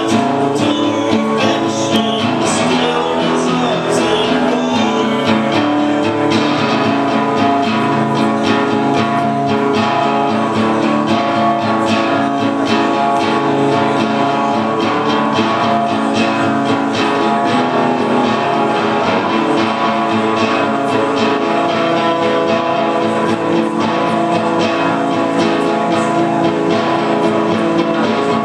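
Acoustic guitar strummed steadily, chords ringing on through a live song.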